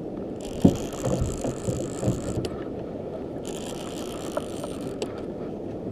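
Conventional fishing reel cranked by hand, its gears whirring in two spells with a short pause between, as a hooked fish is reeled up.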